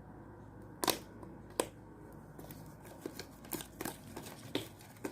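Slime being squeezed and stretched by hand, giving off sharp little pops and clicks: two loud ones about a second in, then a string of softer ones.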